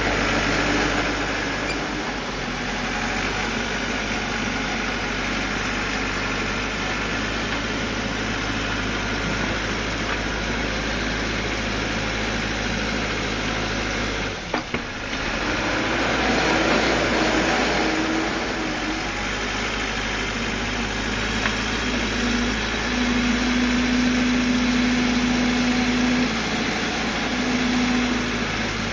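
Caterpillar 416C backhoe's Perkins turbo diesel engine running steadily. It briefly drops out about halfway through, and a higher steady whine comes in near the end.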